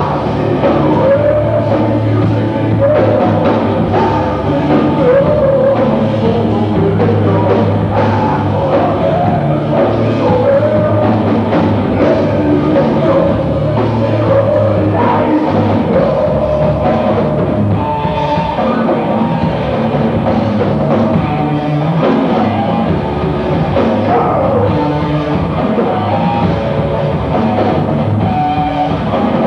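A rock band playing loudly and live, with a drum kit and a voice singing over the band.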